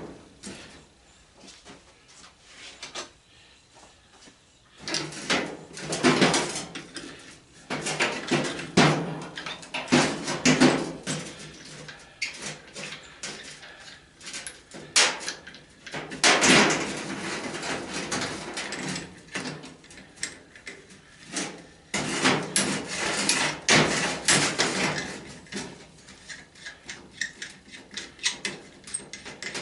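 Metal faucet parts knocking and clattering on a workbench as a kitchen sink faucet is handled and turned over, in irregular bursts of clanks and bumps.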